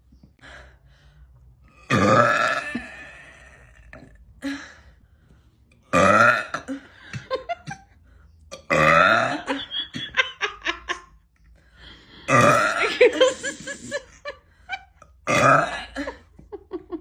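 A woman burping loudly: five long burps a few seconds apart, each lasting about a second, with short clicks in the gaps between some of them.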